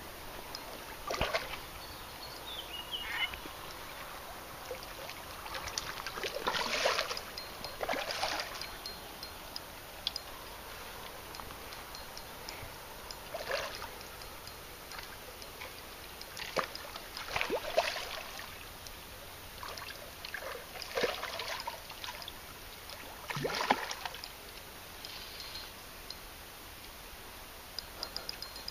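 A hooked carp splashing at the water surface as it is played on the line: short splashes every one to four seconds, the loudest about seven, eighteen and twenty-three seconds in, with quiet water between.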